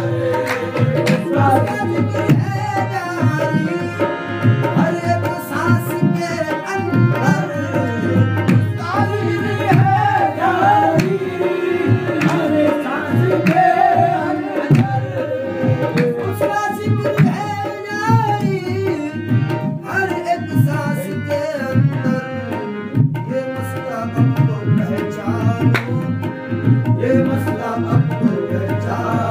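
Qawwali music: tabla drumming a rhythm under a harmonium melody.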